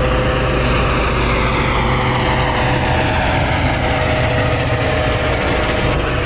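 Helicopter with a ducted-fan (fenestron) tail rotor flying overhead: a rotor rumble that is heaviest in the first couple of seconds, under a whine that slowly falls in pitch as it moves away.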